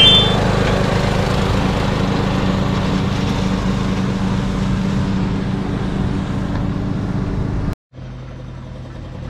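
Ariens riding lawn mower's engine running steadily as it drives across the lawn. A short rising chime sounds right at the start, and after a sudden break near the end the engine is heard quieter.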